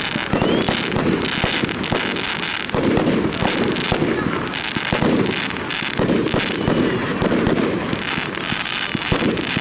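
Fireworks display: shells bursting and crackling in quick succession, many bangs overlapping into a continuous barrage.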